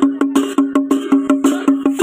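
Panche baja, the traditional Nepali wedding band, playing: a held reed-wind note over a fast, even drum beat of about six or seven strokes a second, with cymbals clashing in time.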